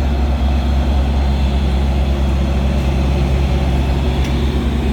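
Two coupled diesel-electric commuter locomotives (MP40PH-3C) running steadily at a standstill, a constant deep engine drone with no change in pitch.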